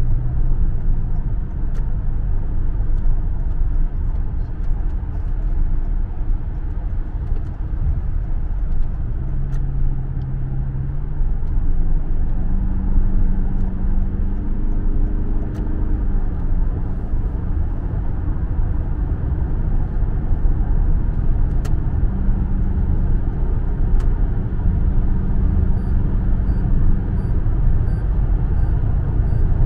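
Taxi driving at highway speed, heard from inside the cabin: a steady low rumble of road and engine noise. A low engine hum steps up in pitch several times around the middle.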